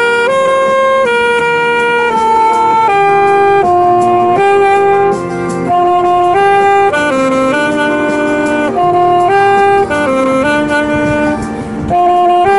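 Alto saxophone playing a slow melody of held notes, with short breaks between phrases about five seconds in and again near the end.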